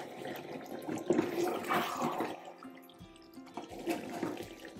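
A steel spoon stirring stuffed eggplants through their wet, oily masala gravy in a metal pot, with the sound of the liquid moving.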